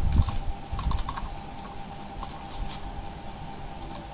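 Plastic cat track toy with a ball rattling and clicking around its track as a kitten bats at it, in two bursts of quick clicks, with a few low thumps in the first second.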